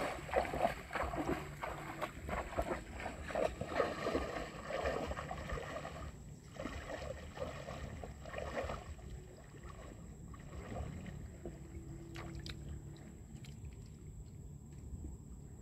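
Water splashing and sloshing as a fishing net is worked in the water, busy at first and dying down after about nine seconds.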